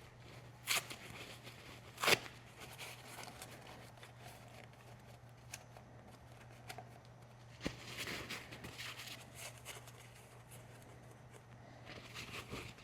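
Quiet hand-work sounds on a motorcycle in a workshop: two short rustling scrapes in the first couple of seconds, a few light clicks, and more rustling later on, over a steady low hum.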